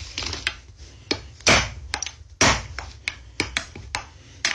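Kitchen knife whacking down on a wooden cutting board: a string of about nine sharp, irregularly spaced knocks.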